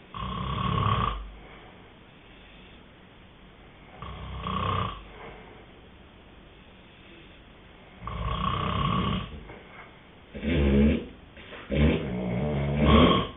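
Snoring: three long snores about four seconds apart, then a quicker run of shorter, lower-pitched snorts in the last three seconds.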